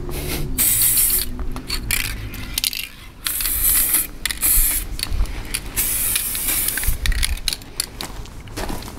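Aerosol spray-paint can hissing in a series of short bursts, each about a second long, with brief gaps between them as the nozzle is pressed and released; the bursts thin out near the end.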